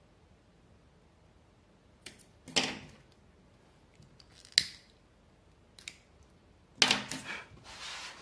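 Small thread-trimming scissors snipping thread ends, a few short sharp clicks spaced a second or so apart. Near the end, a louder run of knocks and rustling as the nailed string-art board is picked up and shifted on the table.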